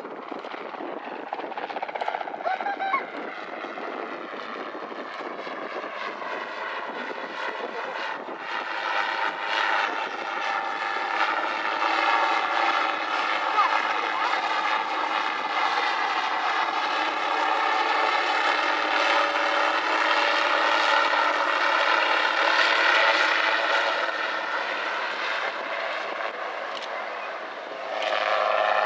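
Gyroplane's engine and pusher propeller droning in a display flypast: a steady drone with a slight waver in pitch. It grows louder over the first twenty seconds or so as the gyroplane comes closer, eases off near the end, then swells again.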